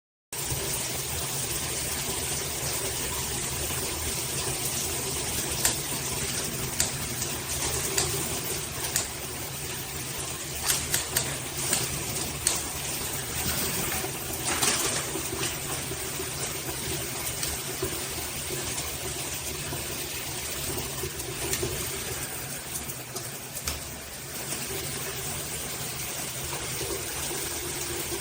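Water spraying steadily from a shower head, with a few sharp clicks and knocks in the middle.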